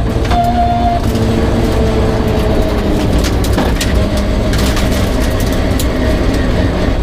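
Rally car's engine running hard inside the cabin of a rear-wheel-drive Peugeot 306 on a stage. The engine note holds, then eases down in pitch from about a second in. It runs over a heavy road rumble, with scattered sharp knocks and clatter from the car's underside, mostly in the second half.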